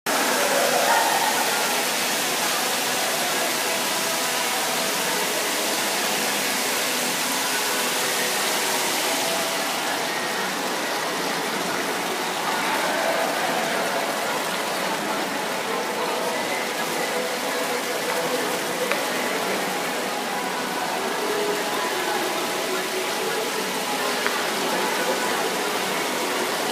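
Mall water fountain splashing, a steady rush of falling water; the hiss loses some of its top end about ten seconds in.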